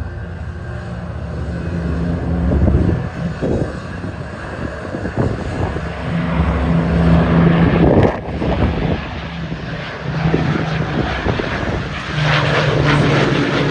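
Avro Lancaster's four Rolls-Royce Merlin piston engines droning as the bomber flies a low pass with its undercarriage lowered, the sound swelling and easing a few times.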